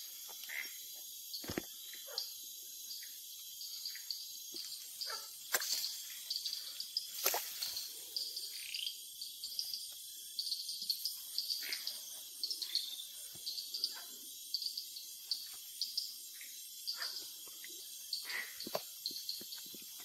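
Night chorus of crickets and other insects, a steady high trill, with a few sharp knocks and rustles close by, the strongest about five and seven seconds in.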